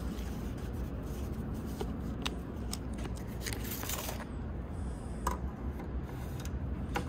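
Tape measure being pulled out and laid against the wooden fuselage: a few light clicks and a short scraping rasp of the blade about four seconds in, over a steady low rumble.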